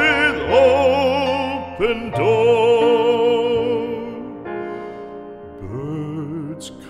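Background music: a classical art song sung in operatic style, the voice holding long notes with strong vibrato over its accompaniment. The voice ends about four seconds in, and the accompaniment carries on more quietly.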